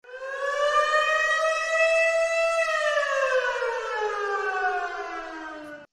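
A single siren wail: the pitch rises slowly for about two and a half seconds, then falls steadily, and the sound cuts off suddenly near the end.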